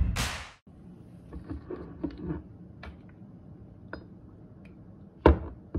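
Light clinks and taps of a glass Tabasco bottle and a small glass shot cup on a countertop while the hot sauce is poured, with a sharper knock about five seconds in.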